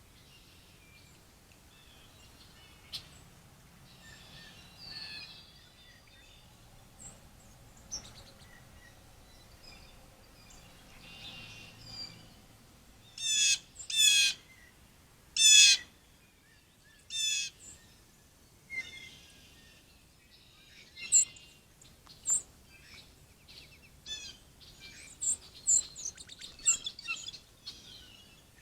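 Wild birds calling and chirping. A few loud, fast trilled calls come about halfway through, and short chirps come thick and fast near the end.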